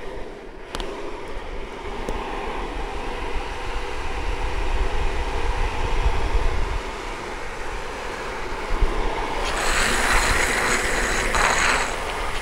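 Longboard wheels rolling fast on asphalt, with wind noise on the microphone. About nine and a half seconds in, a hissing slide of urethane wheels on asphalt with a high whine runs for about two seconds, as the rider puts a gloved hand down to slide.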